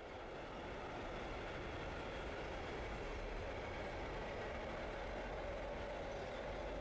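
DB Cargo wagonload freight train running past on the rails, a steady rumble of wagons that swells over the first second and then holds.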